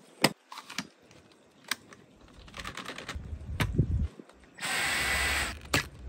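Plastic clicks and knocks as the clear bin of a Dyson Gen5 Detect cordless vacuum is released and emptied of fine dirt, with a short rushing hiss about two-thirds through.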